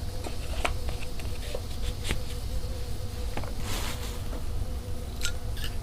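Small clicks and light knocks of metal tools being handled and set down, with a brief rustle about four seconds in, over a steady low electrical hum.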